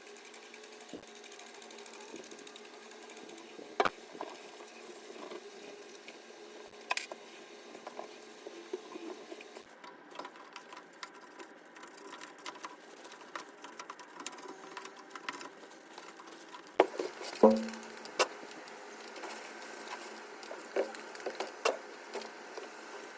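A faint steady mechanical hum with scattered clicks and knocks, the loudest a few knocks about three quarters of the way in.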